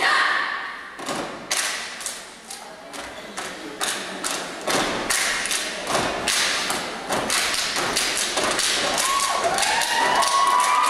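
Step team stepping in unison on a wooden stage: a fast rhythm of sharp stomps and claps. Voices shouting come in near the end.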